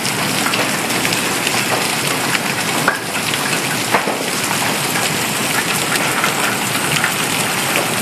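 Hailstorm with large hailstones, bigger than golf balls, coming down hard: a dense steady clatter of impacts. Single louder hits stand out about three and four seconds in, each one like a rocket going off.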